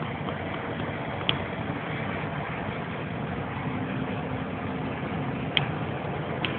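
A vehicle driving on a dirt road: steady engine and tyre noise, with three sharp clicks, one about a second in and two near the end.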